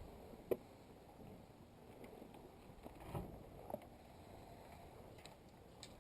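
Quiet background with a few faint, short clicks and knocks: one about half a second in, a couple around three to four seconds, and another near the end.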